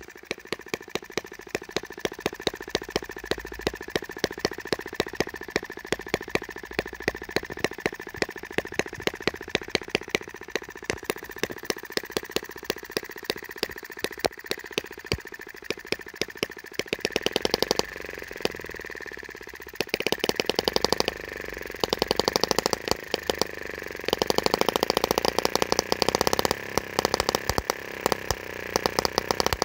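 Miniature single-cylinder petrol model engine (Microcosm M12 / Eachine ET5) with heavy twin flywheels on a very slow idle, set by an O-ring under the idle speed screw: sharp, even firing beats about two a second. About halfway through it speeds up, firing much faster in uneven bursts.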